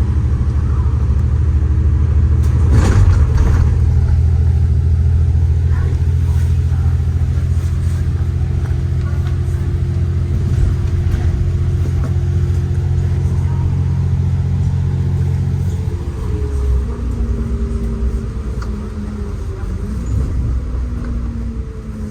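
City bus engine running while under way, heard from inside the cabin as a steady low drone. There is a sharp knock about three seconds in. About sixteen seconds in the engine note drops and begins to shift in pitch.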